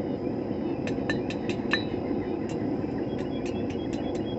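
Blacksmith's hammer striking hot steel on an anvil in quick runs of light blows, about four a second, each with a short metallic ring, as the hairpin's end is spread and flattened. One run starts about a second in, and a second, softer run follows from about two and a half seconds.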